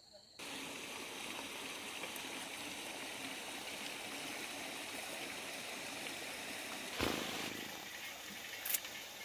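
Steady rushing of a stream, cutting in abruptly about half a second in. A brief louder swell comes about seven seconds in, and a sharp click comes near the end.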